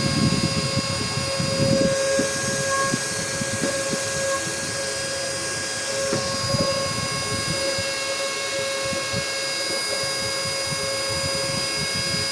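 Cordless vacuum's motor running steadily on battery, a constant whine over an uneven low rumble.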